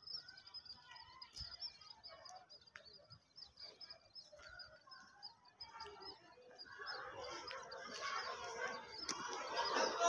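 Small birds chirping steadily, a dense run of short high chirps. Over the last few seconds the chatter of many children's voices grows louder and takes over.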